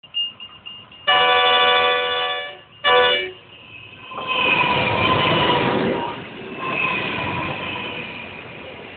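Diesel freight locomotive sounding its horn, a chord of several notes, in one blast of about a second and a half and then a short second blast. The locomotive and its wagons then roll past close by, a loud rush of wheels and engine that slowly eases off, with a level-crossing bell ringing.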